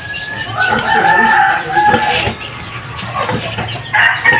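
Chickens calling: a rooster crows, one long call starting about half a second in and lasting nearly two seconds, and another long call starts near the end. Rapid high chirping runs under the first second.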